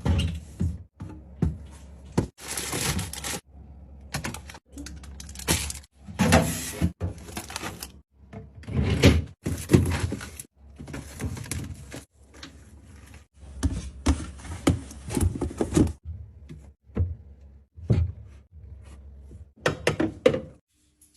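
Items such as containers, jars and bottles being set down and shifted around inside a refrigerator: a run of knocks, thunks and clatters, broken by several abrupt cuts to silence.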